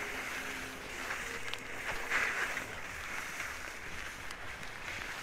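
Skis scraping across icy, hard-packed snow during linked S-turns, a hissing scrape that swells with each turn, mixed with wind on the microphone.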